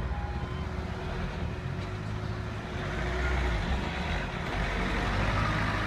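UK level crossing warning alarm cutting off just after the start as the barriers lift, then a steady hum for about three seconds while they rise. Waiting road vehicles idle throughout, and traffic noise grows from about halfway as they start to move off over the crossing.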